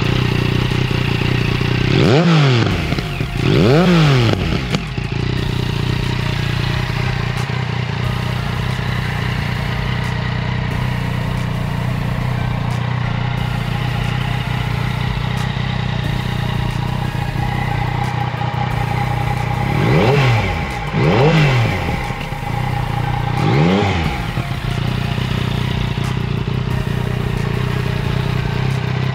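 Yamaha MT-09 SP's inline three-cylinder engine idling through an Akrapovic slip-on exhaust with its db-killer cut short above the disc. The throttle is blipped twice a couple of seconds in and three more times about two-thirds of the way through, each rev rising and falling quickly back to idle.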